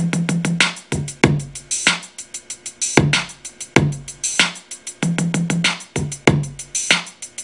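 Programmed drum-machine loop playing back from a Native Instruments Maschine: fast, steady hi-hat ticks over kick and snare hits, with tom hits just added in the step sequencer.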